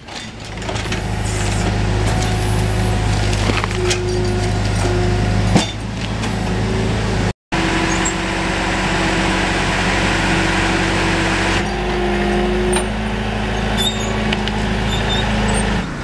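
Engine of a small tracked machine running steadily with a low hum and a hiss above it. The sound cuts out briefly about halfway through.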